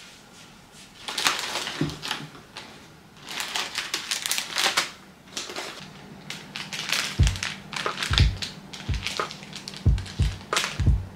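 Crinkly plastic packaging being handled, rustling in short bursts, then several dull knocks as the wrapped items are set down on a table near the end.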